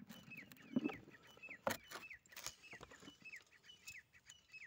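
Ber (Thai apple jujube) fruits being scooped and knocking into a metal pan, giving a few sharp clacks. Behind them a bird repeats a short falling chirp about twice a second.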